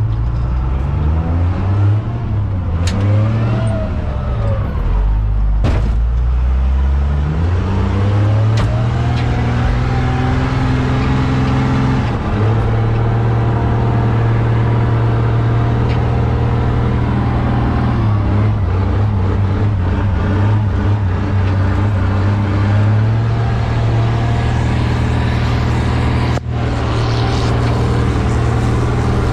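Straight-piped loader's diesel engine running loud, revving up and down through the first several seconds, then holding a mostly steady pitch.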